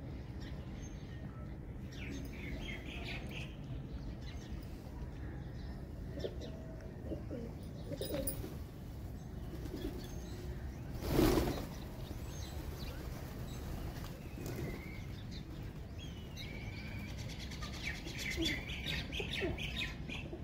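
A flock of rock pigeons feeding, with a loud burst of wing-flapping about halfway through as many take off together. There are some cooing and a few high bird chirps.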